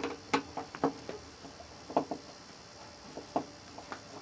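A screwdriver working a screw out of the Roland MV-8800 sampler's bottom casing: a string of short, irregular clicks, some with a brief ring.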